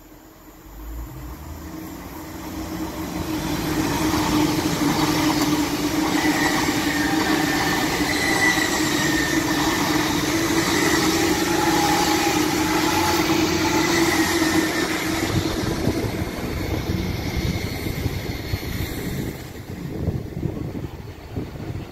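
Hull Trains Class 802 'Paragon' bi-mode train passing along the line. The sound builds as it approaches, is loudest as the carriages go by with a steady hum through the pass, and fades as it pulls away.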